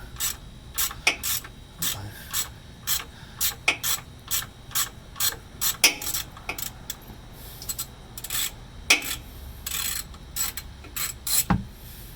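Socket ratchet clicking in short rasping strokes, about two a second, as it backs out the 16 mm oil drain plug.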